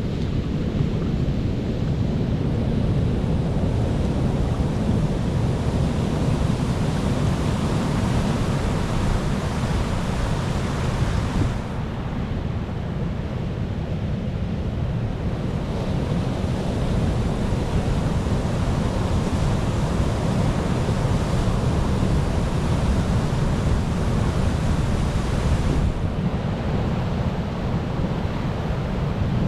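Sea waves washing on a shore: a continuous rush of surf with a deep low rumble. The hiss of the surf eases for a few seconds about twelve seconds in, and again near the end.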